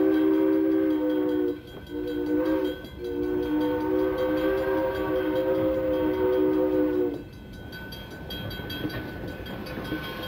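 Steam locomotive's chime whistle, a steady three-note chord blown long, short, then long, sounded as the train reaches a road crossing. After about seven seconds the whistle stops and the train's running rumble carries on.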